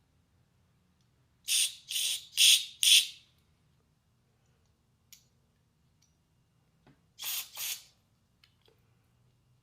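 Short hissing spray blasts used to clean out carburetor parts: four quick blasts, then two more a few seconds later.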